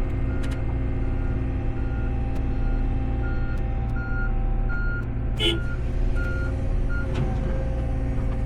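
Diesel heavy equipment running steadily while a backup alarm beeps about twice a second, stopping about seven seconds in; a short clank about five seconds in.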